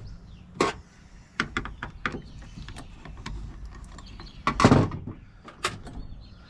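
Small metal parts of a Baldwin mortise lock clicking and clacking as they are handled and checked. About two-thirds of the way through comes one louder, longer clatter.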